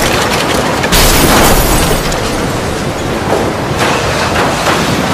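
Strong wind roaring, swelling in gusts about a second in and again near four seconds.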